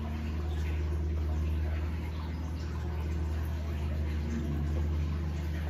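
Steady low mechanical hum running throughout, with faint light rattles of garlic powder being shaken from a plastic container.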